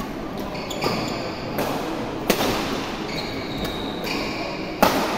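Badminton rally: sharp racket hits on the shuttlecock, a few strokes apart, the loudest about two seconds in and near the end, with short squeaks of shoes on the court floor.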